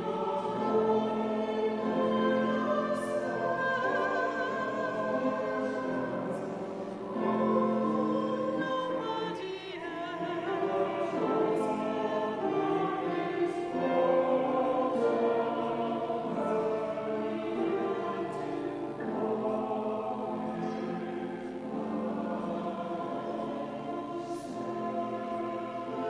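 Church choir singing an offertory hymn, with long held notes changing every second or so.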